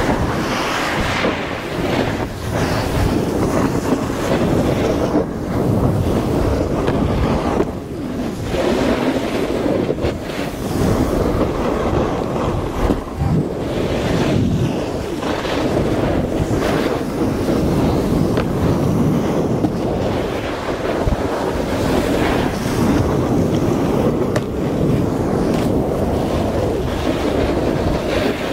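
Wind rushing over an action camera's microphone while riding a snowboard downhill, with the hiss and scrape of the board's edges on packed, groomed snow. The rush swells and dips as the rider turns.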